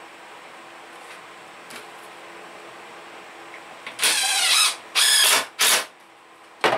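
A pine seat slat pushed and slid along a wooden chair frame: after a faint steady hum, three loud scraping rubs of wood on wood about four seconds in, then a sharp knock near the end.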